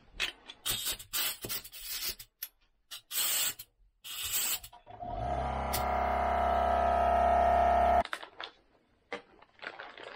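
Short hisses of compressed air around a brass quick-connect fitting on an air hose, then a Milwaukee M18 cordless air compressor's motor runs for about three seconds, getting slightly louder, and cuts off suddenly.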